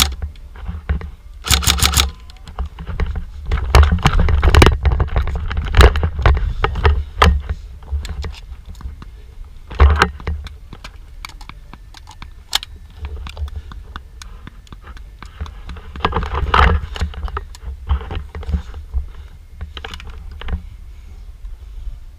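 Airsoft electric guns firing: a short rapid full-auto burst about two seconds in, then scattered shots and clicks with gear rustle and footsteps, and another cluster of shots near the end.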